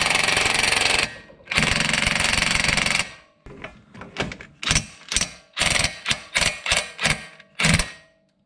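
Impact wrench on a low setting hammering a 32 mm socket on the front axle nut. It runs in two long hammering runs in the first three seconds, then about a dozen short bursts as the nut is run tight.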